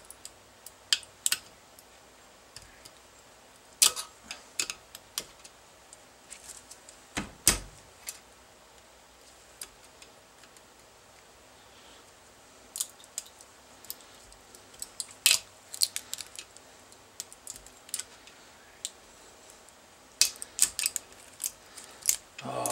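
Irregular clicks and scrapes of a thin metal pick in a hole of a 3D-printed plastic part, prying out and breaking off the printed support material. A few sharper snaps stand out among the lighter scratching.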